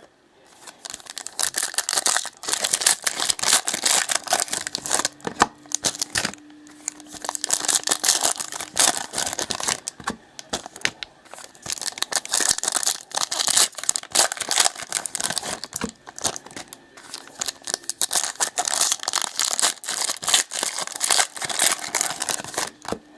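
Plastic and foil wrapping on trading-card packs and boxes being torn open and crinkled by hand, an irregular crackling that runs on with brief pauses.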